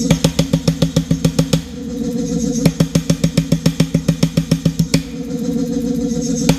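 Power hammer pounding hot steel in rapid, evenly spaced blows, in two runs of a second or two each, with the hammer's motor humming steadily in the pause between them.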